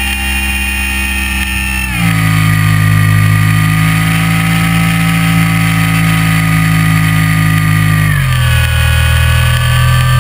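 Electric motor and propeller of a GWS SlowStick RC plane heard from a camera mounted on the plane, a steady drone over wind noise. The pitch steps down at about two seconds and again near eight seconds as the motor slows.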